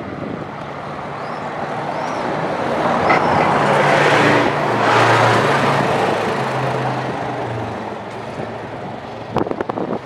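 A motor vehicle passing close by on the street, its engine and tyre noise swelling to a peak about halfway through and then fading away.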